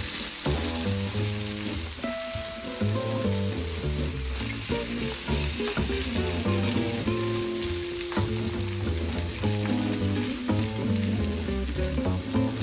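Egg-and-noodle omelette batter sizzling steadily as it fries on a hot oiled dosa tawa, with background music underneath.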